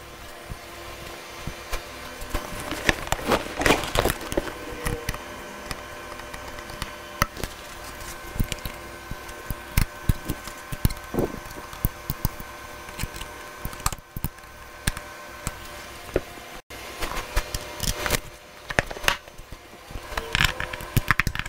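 Irregular clicks, taps and knocks of hands working on a dirt bike's plastic bodywork and fittings, over a faint steady hum.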